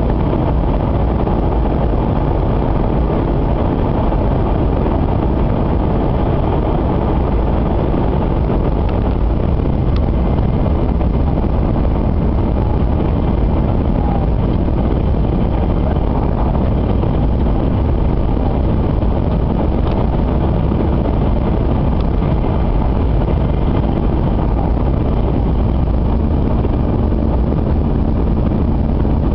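Steady rumble of a Kyushu Shinkansen 800 series train running at speed, heard inside the passenger cabin: running gear and air noise, with a few faint ticks.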